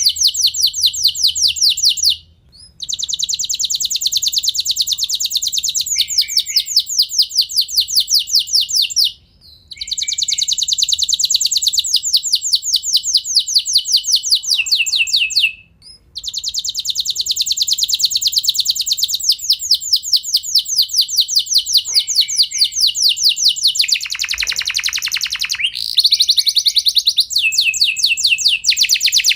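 Domestic canary singing long rolling trills of rapid repeated high notes, in long phrases broken by three short pauses. About 24 seconds in, a roll reaches lower in pitch for a couple of seconds.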